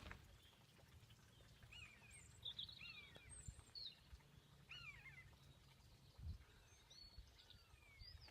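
Faint bird calls: a scattered series of short, curved chirps and whistles, over a low steady rumble.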